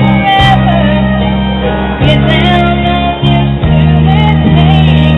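A woman singing into a handheld microphone over instrumental backing music, with low chords held and changing every second or so beneath her wavering melody.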